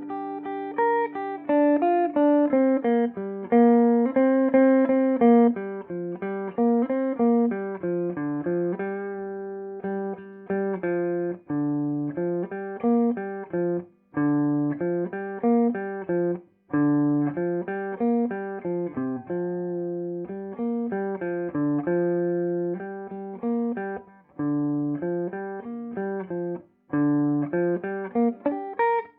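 Electric guitar played clean through a Peavey Bandit 112 combo amp and its 12-inch Blue Marvel speaker, clean channel in classic voicing through the high-gain input. It plays a run of picked single notes and arpeggiated chords, in phrases broken by a few short pauses.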